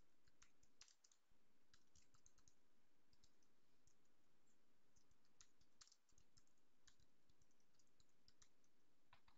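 Faint computer keyboard typing: an irregular run of light keystrokes.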